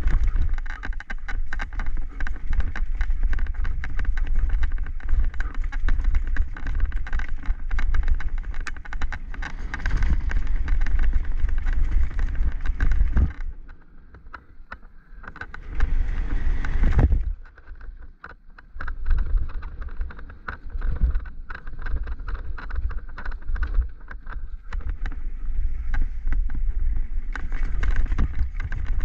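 Downhill mountain bike ridden fast over a rough dirt forest trail: continuous rattling and clattering of the bike over bumps, tyre noise, and wind buffeting the camera microphone. The rattling eases for a few seconds about halfway through, then picks up again.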